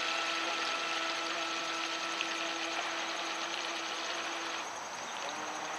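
Electric motor of a Raidentech Hydro Raido RC boat whining at a steady pitch as the boat runs across the water. The whine drops away about three-quarters of the way through.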